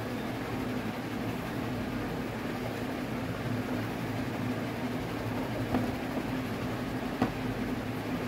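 Steady mechanical hum of a room fan or air conditioner, with two light knocks from the microscope being handled on the table, about six and seven seconds in.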